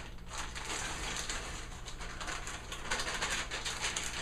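Stir-fry vegetables sizzling and crackling in a hot frying pan.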